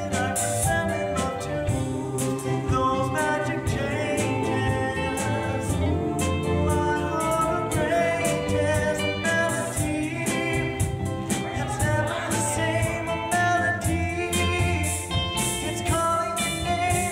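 A stage cast singing a doo-wop song together over instrumental accompaniment with a steady beat.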